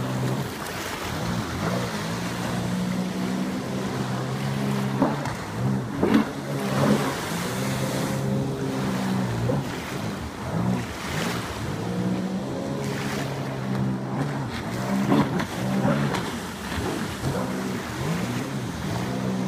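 Sea-Doo Spark 3up personal watercraft's three-cylinder engine running, its pitch rising and falling again and again as the throttle is worked through tight turns, with the rush of water spray surging over it now and then.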